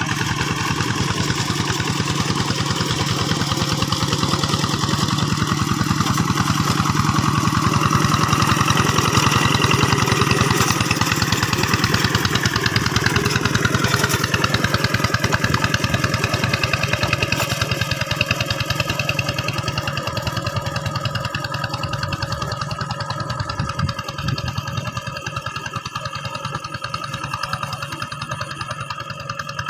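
Diesel engine of a two-wheel hand tractor running with a fast, steady firing beat. Its pitch drops about halfway through as it slows, and it gets a little quieter toward the end.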